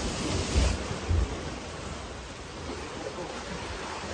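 Log flume boat running through its water trough: water rushing and splashing around the boat, with wind buffeting the microphone and a couple of low thumps in the first second or so. The splashing then settles to a steadier, quieter rush.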